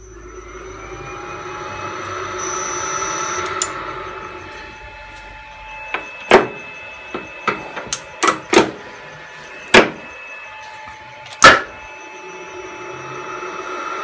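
Lathe's electric motor on a variable frequency drive spinning up with a rising whine and a high, steady drive whistle, then winding down a few seconds later. A string of sharp knocks follows, and near the end the motor starts ramping up again.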